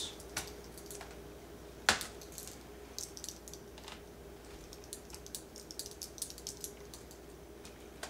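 Faint small clicks and ticks of a screwdriver working the keyboard screws on a Dell D520 laptop, with one sharper click about two seconds in.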